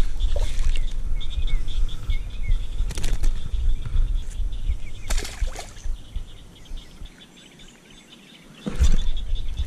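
Wind rumbling on an action camera's microphone, with birds chirping in the background and knocks and rustles as a small bass is handled on the line. The wind rumble drops away for about a second and a half near the end, then a loud thump comes in.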